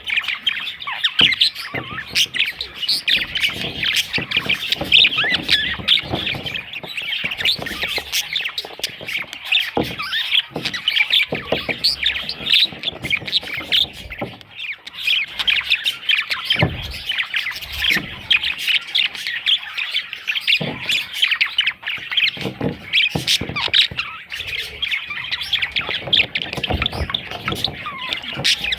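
A group of budgerigars chattering, chirping and squawking without a break, a dense overlapping flow of short calls. Occasional sharp knocks sound among the calls.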